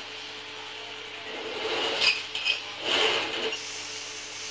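A spoon scraping and stirring coarse garlic-chilli paste in a nonstick wok, for about two seconds from just over a second in, with a few light knocks of the spoon against the pan.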